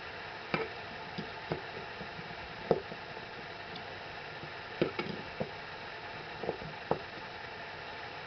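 Channellock #1 Phillips screwdriver tip clicking and knocking irregularly against Phillips screw heads set in a wooden 2x4, about nine short clicks over a steady hiss. The screw heads are stripped out too far for the driver to turn them.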